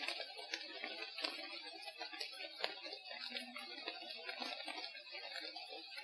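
Forest field recording: irregular sharp clicks and snaps, a few a second, over a dense crackling, murmuring background and a steady high hiss.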